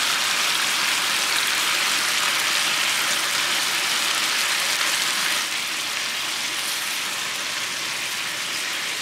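Pork chops in a Tiger Sauce marinade and jalapeños sizzling on a Blackstone E-Series electric griddle at 365°F: a steady frying hiss that drops a little in level about five and a half seconds in.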